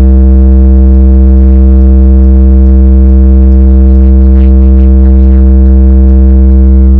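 A Chevrolet Celta's car audio system playing a single held bass note through its bass speakers, very loud and steady, heard from inside the car.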